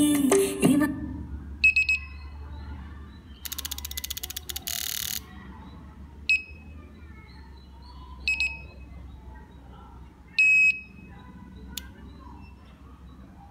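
Piezo buzzer on a speaker-protection board beeping in a pattern: a short beep, about two seconds of rapid buzzing rattle, then single beeps, a double beep and one longer beep, over a faint low hum. Music playing at the start cuts off abruptly within the first second.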